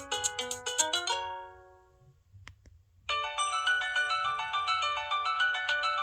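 Built-in ringtones of an LG-SH840 mobile phone. A bright electronic ringtone melody ends about a second in, its last notes dying away, and after a short near-silent gap with two faint clicks a new ringtone melody starts about three seconds in.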